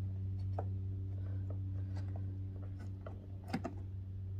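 Faint scattered clicks and ticks of fingers screwing the threaded throttle-cable adjuster on a BMW R1150GS throttle body, the clearest about three and a half seconds in, over a steady low hum.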